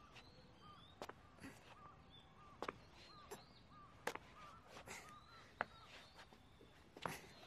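Faint outdoor ambience of small birds chirping in short, hooked calls, with a scattered handful of sharp clicks.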